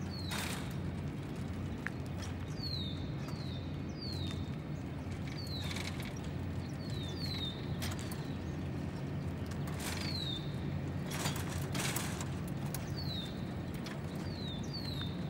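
A bird chirping over and over, short falling chirps, against a steady low outdoor rumble, with a few brief swishes of noise.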